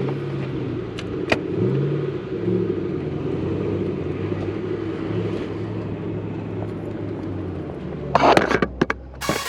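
A 2005 Ford Mustang GT's 4.6-litre V8 running steadily, its pitch shifting a little, with a few sharp knocks near the end.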